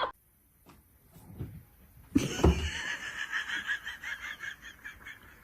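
A sudden thump about two seconds in, then a person laughing in a quick, even run of about five laughs a second.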